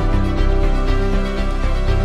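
Instrumental background music, sustained notes over a changing bass line.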